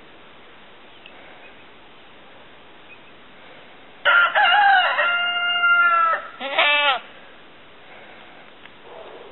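A rooster crows once about four seconds in, a loud call of about three seconds with a long held note, ending in a short wavering note, over a faint steady outdoor hiss.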